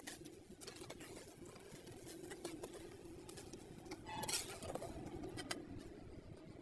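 Small pointed trowel stirring and mashing wet cement mix in a cement-lined hollow: soft squelches and scattered scrapes and clicks of the blade against the hard surface, with a louder scrape about four seconds in.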